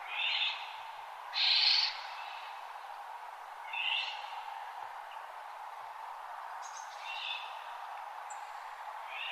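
Wild birds calling at dawn: short chirps every few seconds, with one louder, harsher call about a second and a half in, over a steady background hiss.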